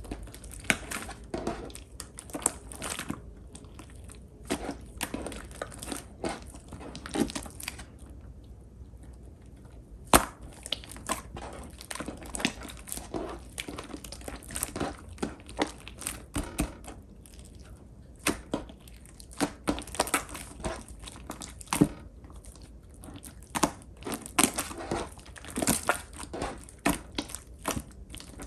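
Clear pink slime being squished and played with, making a string of irregular sticky pops and crackles. The popping thins out around eight seconds in, then one sharp loud pop comes about ten seconds in.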